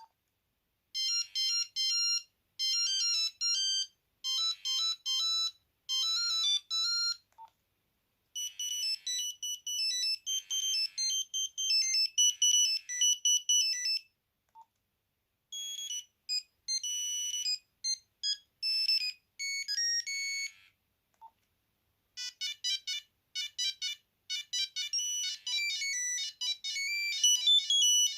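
Nokia 8210 mobile phone playing monophonic beeping ringtone melodies, four different tunes one after another, each followed by a second or so of silence before the next begins.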